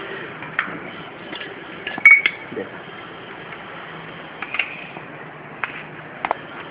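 Light clicks and knocks from a plastic tray and a glass jar being handled, a few scattered through, with the loudest cluster about two seconds in, over steady background noise.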